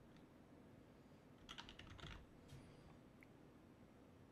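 Faint computer keyboard typing: a quick run of keystrokes about a second and a half in, then a couple of single taps.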